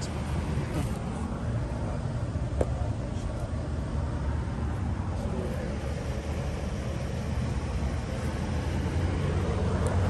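Steady low hum of a running outdoor air-conditioner condensing unit, growing louder near the end, with a single click a little over two seconds in.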